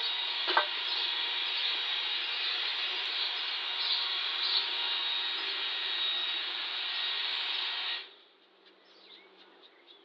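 Electric hot-air dryer running steadily while drying freshly painted wood, switched off about eight seconds in.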